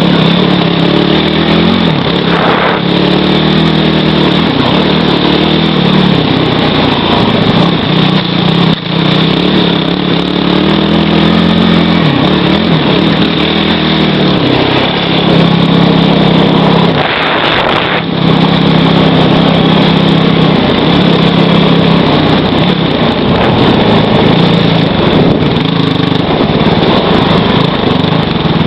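Kawasaki KFX450R quad's single-cylinder four-stroke engine, ridden hard: it revs up and backs off again and again as the throttle is worked.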